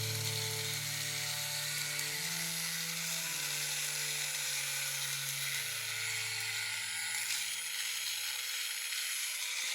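Soft closing music of held low notes that change pitch about once a second, over a steady crackling hiss; the notes stop near the end, leaving only the hiss.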